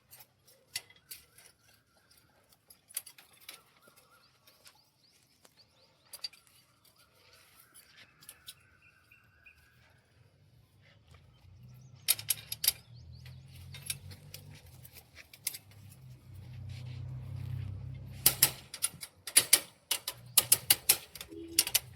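Scattered metallic clinks and taps of steel pieces being handled, thicker in clusters near the middle and toward the end, over a low hum that sets in about halfway.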